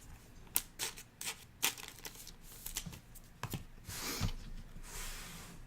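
Trading cards being handled: a scatter of light clicks and rustles, with a longer papery slide about four seconds in.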